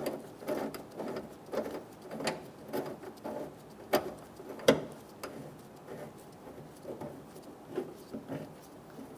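Small irregular clicks and rattles of a tailgate latch bolt and latch being fitted by hand, with two sharper clicks about four seconds in.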